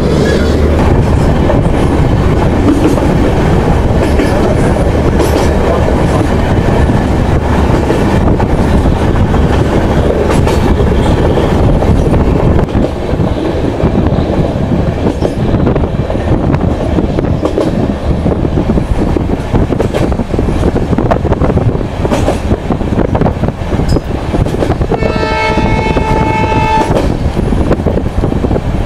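Passenger train running on the rails, a steady rumble with many wheel clicks over the track; about 25 seconds in, the locomotive's horn sounds for around two seconds.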